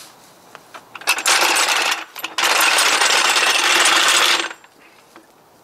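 Jack pulled out from under the van across concrete: a short scrape, then a steady metallic rolling and scraping noise of about two seconds that stops suddenly.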